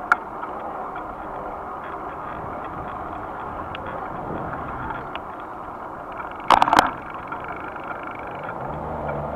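Steady road and wind noise of a bicycle riding on city asphalt, heard from a camera on the bike. A sharp click comes right at the start, and a short burst of loud clattering clicks about six and a half seconds in.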